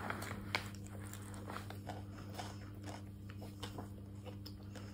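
A person eating: chewing and small scattered clicks of the fork and food, over a steady low hum.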